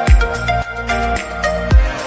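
Background music with a steady beat of about two low thumps a second under a melody.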